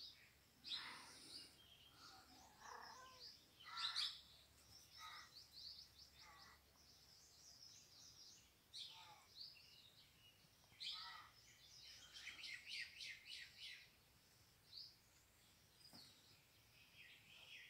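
Small birds chirping in quick runs of short, high notes, with a few louder calls mixed in, all faint.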